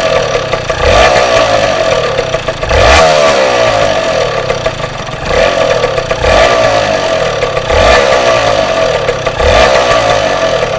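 Yamaha TZR 125 (4JB) two-stroke single-cylinder engine blipped repeatedly, about six short revs one to two seconds apart, dropping back to a fast idle between them. The owner hears an odd sound from this engine that he can't place.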